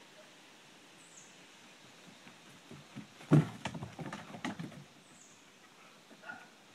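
Animals moving about on a hard floor: a cluster of paw taps, scuffles and knocks a little past the middle, the loudest a single bump, with quiet before and after.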